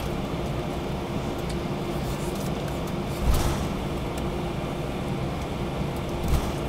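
Steady cabin hum of an Airbus A321-200 taxiing, engines at low power, with a held tone running through it. Two short dull thumps come through, one about three seconds in and one near the end.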